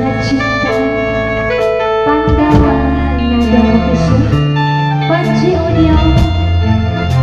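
Band music from a burok troupe: a guitar-like melody moving in short steps over a steady bass line, with drum strikes about twice a second.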